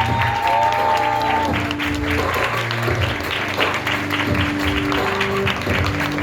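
Theatre audience applauding steadily during a curtain call, over instrumental music with held notes.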